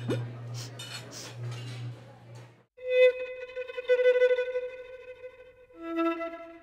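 A low hum with scratchy noise stops suddenly. Then a violin plays long held bowed notes: one note held for about three seconds, then a lower one.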